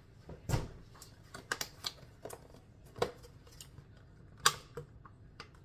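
Clear plastic food container being handled and opened: an irregular run of crackles and clicks, with sharp snaps about half a second in and again about four and a half seconds in.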